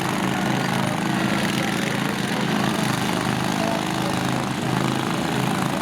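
Lawn tractor engines running, a steady drone of small engines.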